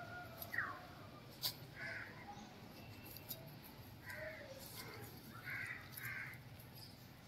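Crows cawing faintly a few times, two calls close together near the end, with a few short sharp clicks in between.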